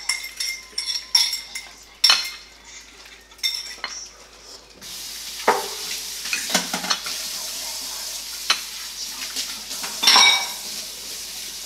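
Dishes and cutlery clinking and knocking in a kitchen. About five seconds in, a steady hiss starts and carries on under further clinks, with a louder clatter near the end.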